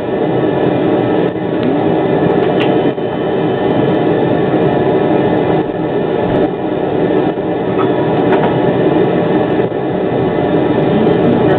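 Steady cab noise of a Škoda 03T Anitra low-floor tram: a constant hum and rumble with faint whines above it and a few short clicks.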